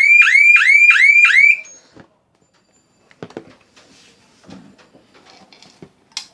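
Security alarm panel's built-in siren sounding loudly, a fast rising electronic whoop repeating about three times a second, which cuts off suddenly about one and a half seconds in. Faint clicks and handling sounds follow, with a sharper click near the end.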